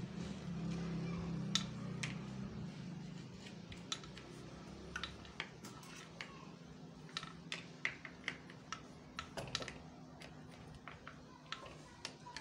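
Light, irregular metallic clicks and taps from a Hero HF Deluxe motorcycle clutch assembly being handled while its centre nut is worked with a socket wrench, over a low hum in the first few seconds.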